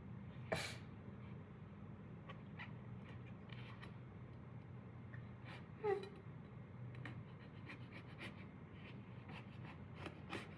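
Faint clicks and scraping of a knife cutting into passion fruit rind, with a sharper click about half a second in and one short falling squeak about six seconds in, over a steady low hum.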